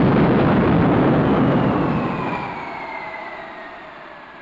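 Early Whittle gas-turbine jet engine on a test stand, running with a loud roar that began just before. After about two seconds the roar dies away and the turbine's whine falls steadily in pitch as the engine runs down.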